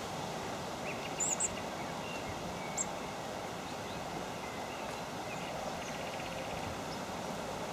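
Small wild birds calling over a steady background hiss: a few short high chirps about a second in and near the three-second mark, and two brief rapid chattering series, one near the start and one near the end.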